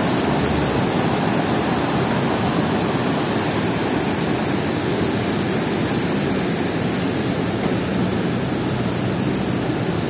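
Swollen mountain river rushing in spate below a bridge, a steady, even rush of water with no let-up. The river is running high with rain and snowmelt.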